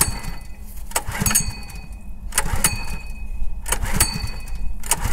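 Small gasoline engine on a syrup transfer pump being cranked over about four times at roughly one-second intervals without firing. It has sat unused since spring, and its carburetor is clogged and needs cleaning out.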